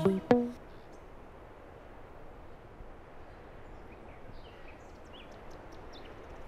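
Background music cuts off about half a second in, leaving faint outdoor ambience: a steady low hiss with a few short bird chirps near the end.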